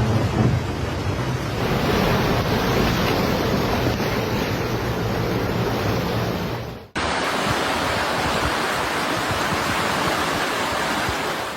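Steady rushing of fast-flowing floodwater, cutting off sharply about seven seconds in and picking up again right away with a similar rush.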